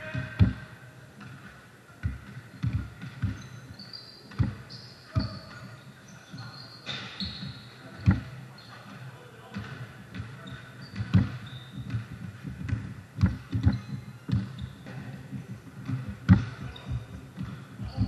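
A basketball bouncing on a court floor in irregular thuds, now and then in quick runs of dribbles. Short high squeaks, typical of sneakers on the court, come in between.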